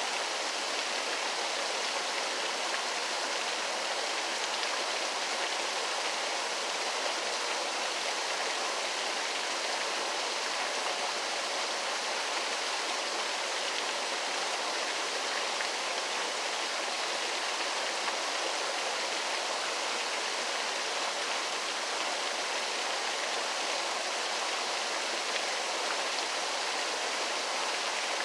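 Waterfall: a steady, even rush of falling water, unbroken throughout, with little deep rumble.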